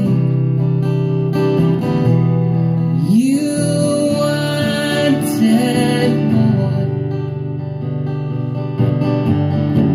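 A song performed live: an acoustic guitar strummed steadily while a man sings long held notes over it.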